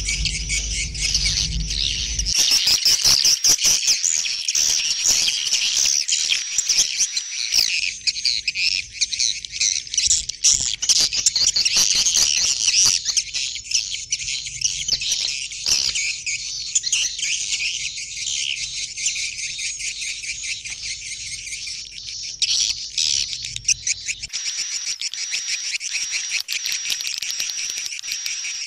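Continuous dense, high-pitched chirping from many animals at once. A low steady hum runs under it, drops out about two seconds in, comes back around eight seconds, and stops a few seconds before the end.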